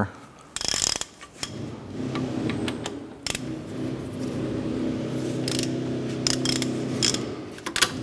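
Ratchet with a 13 mm socket loosening a brake caliper bolt: a few sharp clicks and a louder burst as the bolt starts to turn, then a long run of rapid, even ratchet clicking as it is backed out.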